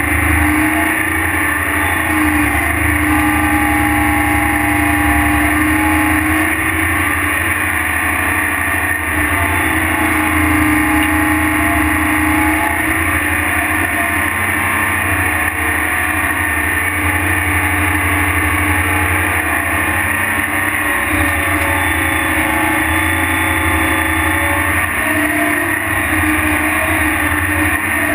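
Tractor engine running steadily while towing a pull-type earthmoving scraper across a dirt field, heard loud and close from a camera mounted on the rig.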